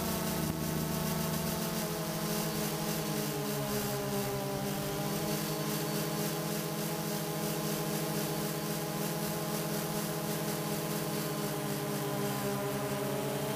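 Camera drone's electric motors and propellers whirring steadily in flight, a high buzzing whine with hiss, its pitch wavering slightly as the throttle changes.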